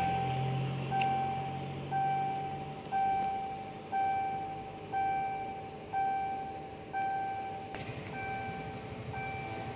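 Railway level-crossing warning bell dinging steadily, about once a second, as the crossing signal warns of an approaching train. A low rumble fades out in the first few seconds.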